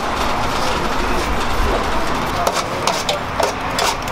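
Steady street background noise with a few short sharp clicks and scrapes from a long knife shaving doner meat off a vertical rotisserie spit.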